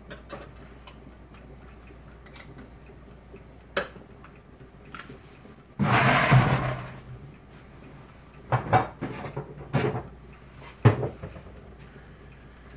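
Kitchen handling sounds: scattered knocks and clatters of dishes and utensils on a counter, with a brief rushing noise about six seconds in that is the loudest thing.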